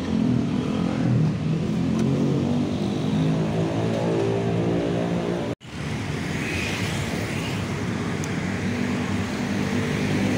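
Roadside traffic: a motor vehicle engine runs close by with its pitch creeping upward, the sound breaks off for an instant about halfway through, then a steady hum of passing traffic.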